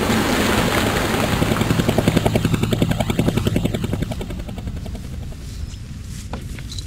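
Helicopter rotor chopping in a steady rhythm of several beats a second, fading away over a few seconds.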